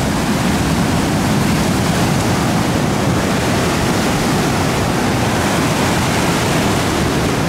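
Ocean surf breaking on a rocky shore: a steady, loud rush of water, with wind on the microphone.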